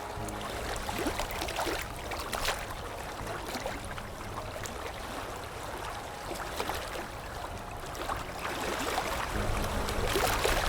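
Sea waves lapping and washing, with many small splashes and trickles over a steady wash of water. A low steady tone lies underneath and grows louder near the end.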